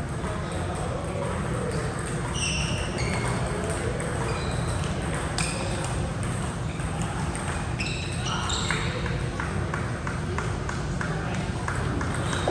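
Athletic shoes squeaking on an indoor court floor, many short high-pitched squeaks scattered throughout, with a few sharp knocks. Under them runs a steady low rumble of a large hall and voices.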